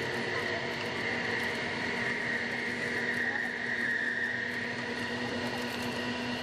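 Machinery running steadily: a continuous hum with a high whine that sags slightly in pitch about halfway through.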